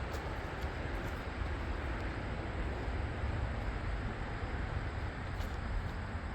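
Steady low rumble and hiss of outdoor background noise, with no saw motor running.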